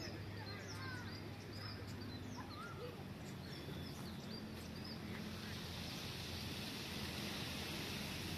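Outdoor garden ambience: small birds chirping briefly, mostly in the first half, over a steady low hum. About five seconds in, a high, even hiss comes up and holds.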